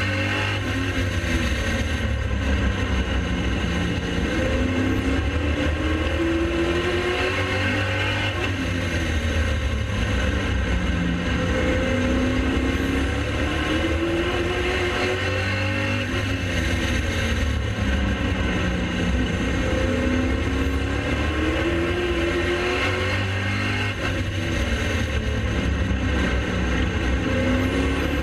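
Late model race car engines running at racing speed, the pitch rising under acceleration and falling off again about every four seconds, over a steady low rumble.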